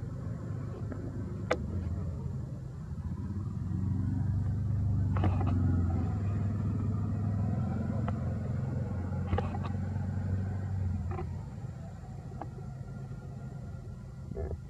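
A motor vehicle passing, a low engine rumble that swells from about four seconds in and fades away a little after eleven seconds, with a few faint sharp clicks.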